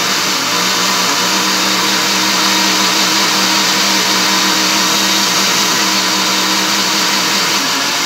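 Mondial Dinâmico 700-watt four-blade blender running steadily, churning papaya, banana and milk into a smoothie, its motor whine holding one steady pitch.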